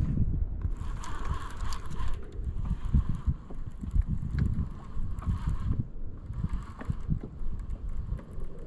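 Baitcasting reel being cranked in spells of a few seconds as a lure is retrieved, with wind buffeting the microphone as a low rumble underneath.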